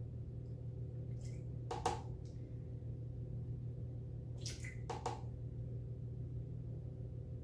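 Steady low hum under a few short, soft clicks and small splashes, about two seconds in and again around four to five seconds in, as aquafaba is measured from a glass jar with a plastic spoon into a blender jar.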